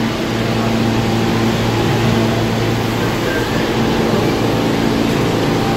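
Steady low hum of an R46 subway train standing at the platform with its doors open, its onboard equipment running, with two held low tones and a constant hiss.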